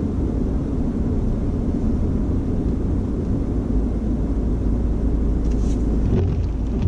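Steady low rumble of a car's engine and tyres on a snow-covered road, heard from inside the cabin, with a few faint ticks near the end.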